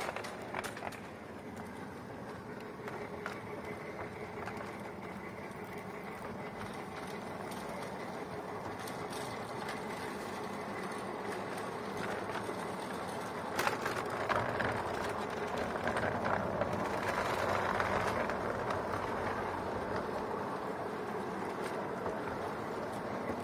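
5-inch gauge miniature train running on its track, heard from aboard the riding car: a steady rumble of wheels on rail with scattered clicks, growing louder about two-thirds of the way through.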